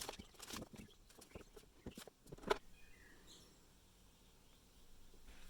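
A few faint sharp clicks and taps of handling, then several faint short bird chirps.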